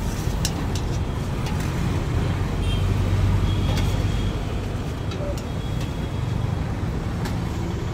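Steady low rumble of road traffic passing close by, with a few sharp clinks of steel serving utensils and vessels.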